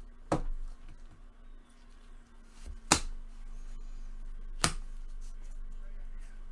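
Three sharp taps of trading cards and packs being handled on a table, the second the loudest, over a steady low hum.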